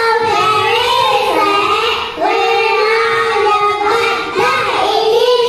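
A group of young children singing together in unison, holding long notes in phrases with short breaks between them.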